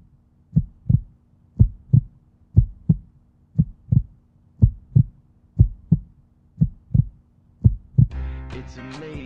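Heartbeat sound effect: a double thump about once a second, steady and even. About eight seconds in it gives way to music with guitar.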